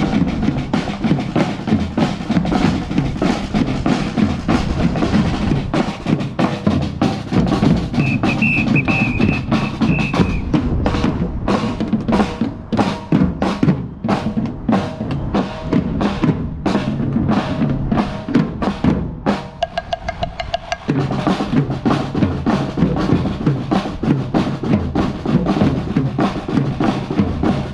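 Outro music with a steady drum-kit beat of kick and snare; the bass drops out for a moment about two-thirds of the way through, then the full beat returns.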